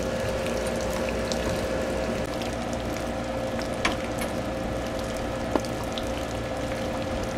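Steady machine hum holding one constant tone over a wash of noise, with two small sharp clicks partway through.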